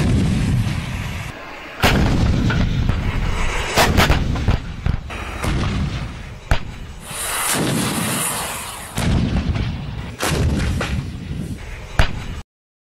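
Artillery fire from a self-propelled howitzer and shells exploding: about half a dozen sharp blasts, each trailing into a long low rumble.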